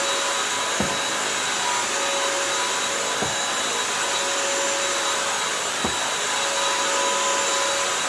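Bissell CrossWave 1785A wet-dry vacuum running steadily with a constant motor whine. Faint low thumps come about every two and a half seconds.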